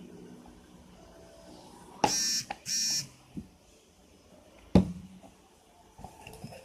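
Two short electronic buzzer beeps, each about half a second long, a little more than half a second apart, followed about two seconds later by a single sharp click.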